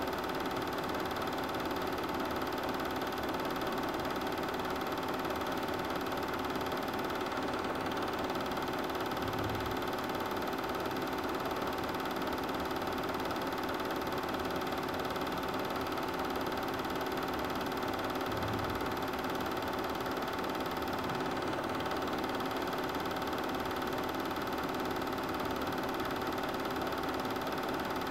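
Super 8 film projector running steadily: a constant motor hum with several fixed tones over the film transport's mechanical whirr.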